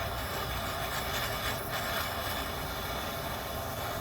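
Gas torch flame burning with a steady rushing hiss while it heats a rusted bolt.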